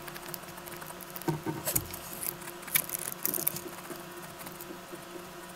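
Pencil scratching across drawing paper in short, irregular sketching strokes, a few of them louder in the middle.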